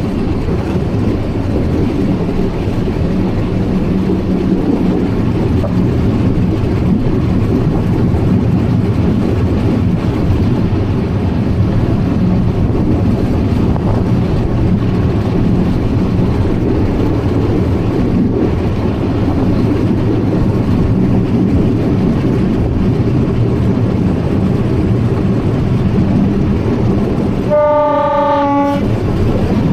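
Atterseebahn metre-gauge train running with a steady rumble and hum. Near the end the train's horn sounds once, a short blast of about a second.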